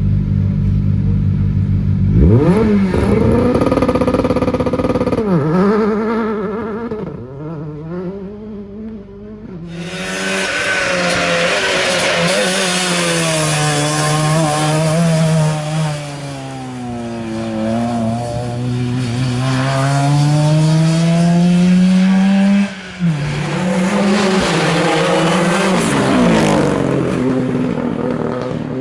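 Rally car engines at full throttle. One engine runs steadily, then revs up sharply and pulls away through rapid gear changes. Another rally car follows, its engine note rising and falling with each shift and lift-off.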